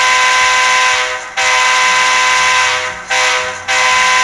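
Sound decoder in a model SD7 diesel locomotive playing a grade-crossing horn sequence through its onboard speakers: a multi-chime diesel horn sounding long, long, short, then a final long blast beginning near the end.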